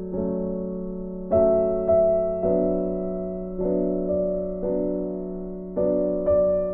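Slow, gentle piano music: notes and chords struck about once a second, each left to ring and fade over a sustained low note.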